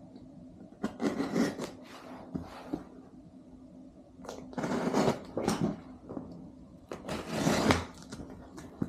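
A utility knife slicing through packing tape on a cardboard box in several short strokes, with the cardboard scraping and rustling. A low steady hum runs underneath.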